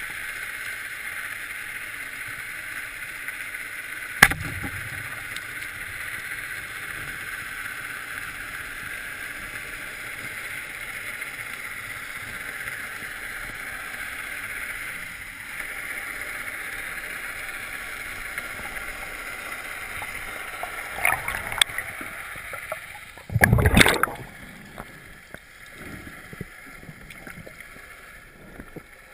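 Underwater sound picked up through a camera housing: a steady hiss of moving water, with a sharp knock about four seconds in and a loud rumbling bump, about a second long, near the end.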